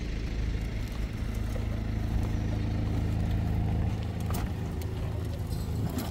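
A vehicle engine idling with a steady low hum. A few light knocks come over it in the second half.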